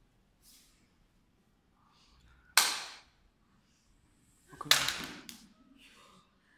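Two sharp toy-pistol shot cracks about two seconds apart, a staged shooting; the second is followed by a few smaller knocks.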